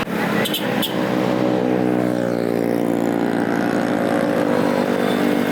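Diesel tour bus engine running under load, its pitch dipping slightly and then holding steady. Two brief sharp clicks sound about half a second in.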